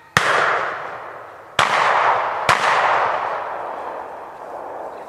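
Three gunshots, each echoing and fading off over a couple of seconds: the first about a fifth of a second in, the second about a second and a half later, the third under a second after that.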